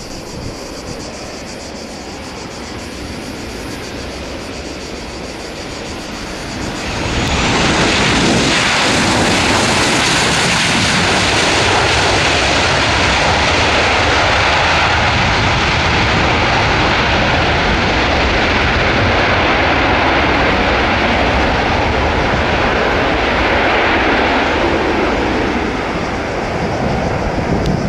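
Airliner's engines heard as the aircraft passes close by. A thin whine falls in pitch at first, then a loud, steady roar sets in suddenly about seven seconds in, holds, and eases off near the end.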